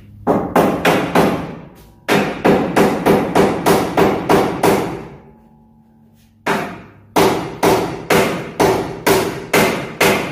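Hand hammer blows on steel under a Dodge Dakota, knocking at a stuck bolt. The blows come in three runs at a steady pace of about three a second, each strike ringing briefly.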